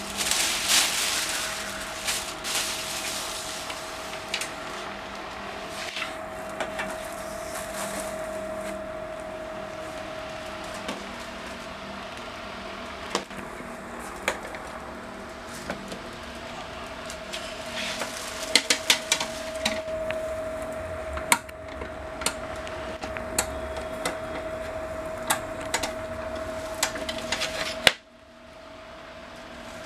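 Plastic wrapping rustling as it is pulled off a folding study table, then scattered clicks and knocks of the table's metal frame and folding legs being handled and snapped open, with a quick run of sharp clicks a few seconds past the middle. A faint steady hum sits under it all.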